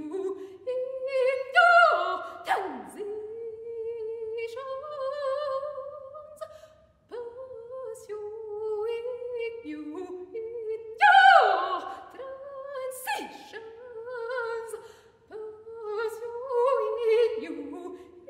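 Solo soprano singing a cappella: held, wavering notes broken three times by loud, sharp cries that swoop steeply down in pitch, with a brief silence about seven seconds in.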